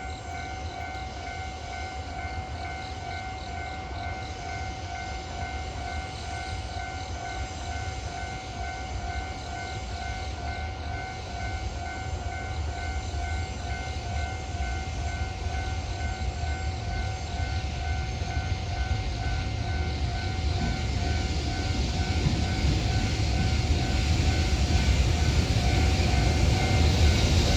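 Japanese level-crossing warning bell ringing, an even, repeating electronic ding. Underneath it the low rumble of the approaching EH500-hauled container freight train grows steadily louder through the last third.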